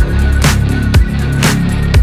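Background music with a steady beat, about two beats a second, over a deep sustained bass.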